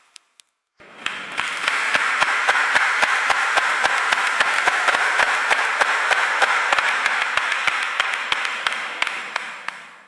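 Classroom ambience: a roomful of students chattering over each other, with scattered sharp clicks and taps throughout. It fades in about a second in and fades away near the end.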